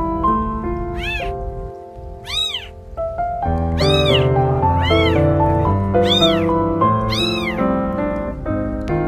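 Newborn kittens mewing for their mother: about six short, high-pitched mews, each rising and then falling in pitch. Background music plays underneath.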